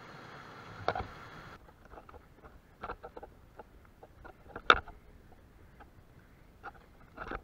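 Water rushing steadily over a small weir, cut off abruptly about a second and a half in. After that come scattered clicks and knocks from a KTM Myroon mountain bike rattling over a rough grass track, with one sharp loud click near the end.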